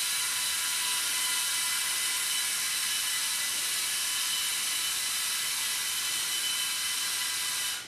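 Lego Technic electric motors and gear train whirring steadily with a high whine as the 50-wheel vehicle drives. The sound cuts off suddenly near the end.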